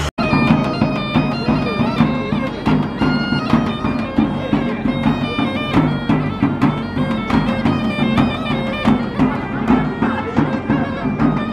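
Bagpipe playing a folk melody over a steady drone, with a hand-held frame drum keeping an even beat.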